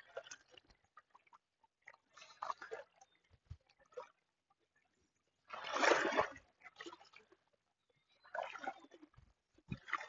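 A person wading through shallow river water: irregular swishing splashes, one or two seconds apart, the loudest about six seconds in.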